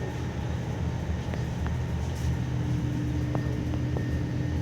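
Hydraulic static pile driver machine running steadily, its engine and hydraulic power unit giving a continuous low hum, with a steady higher whine joining about halfway through and a few faint ticks.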